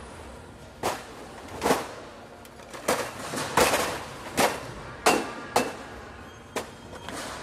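Glass bottles in plastic drink crates being handled, giving about nine irregular sharp knocks and clinks with short ringing tails.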